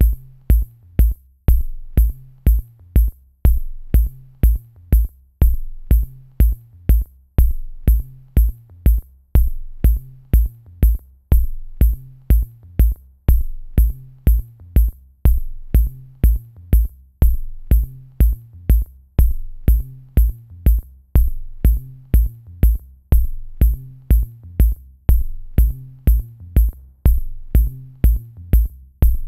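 Electronic music with a steady drum-machine beat: sharp high clicks over deep bass thumps, repeating evenly.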